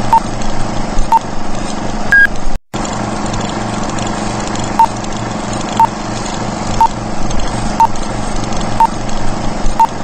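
Short electronic beeps about once a second, with one higher beep about two seconds in, over a steady low hum. The sound drops out briefly about two and a half seconds in.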